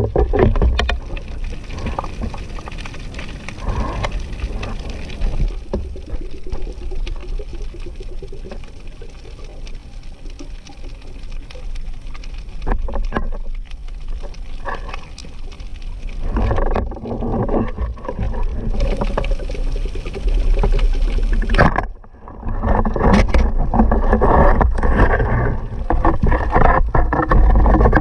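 Underwater sound heard through a waterproof camera housing: a constant low rumble of moving water with scattered clicks and knocks. It grows louder in the second half, with a brief drop just before the end.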